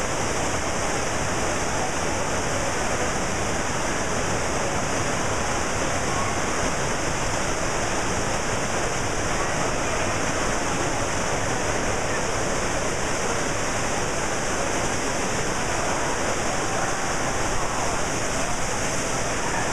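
Water from an indoor sheet-wave surf machine rushing steadily up its ride surface, a constant even roar of spraying water.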